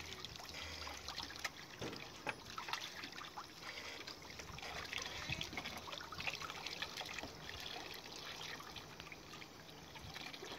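Water running from an outdoor tap over raw rabbit meat being rinsed by hand, trickling and splashing into a pot of water below, with small irregular splashes as the pieces are turned.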